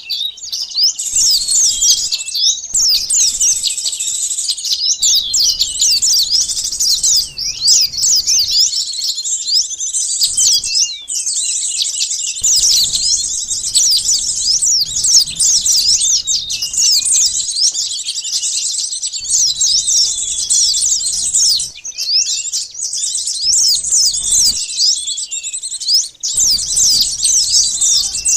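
Dense chorus of small birds, sunbirds among them, chirping and twittering in quick, high, overlapping calls without a break. It is a bird-lure (pikat) recording meant to draw small wild birds in.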